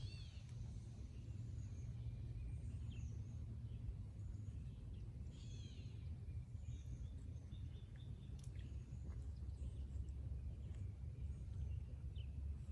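Wild birds chirping and singing in short, scattered calls over a steady low rumble.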